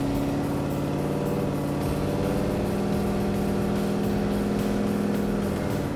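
Supercharged 454 big-block V8 of a custom 1937 Hudson Terraplane pickup running steadily while the truck cruises, its pitch shifting only slightly.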